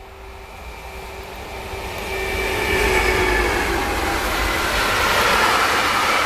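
Electric locomotive hauling a container freight train approaching and passing at speed. Its whine grows louder over about three seconds and dips in pitch as it goes by, then gives way to the steady rush and rumble of the container wagons.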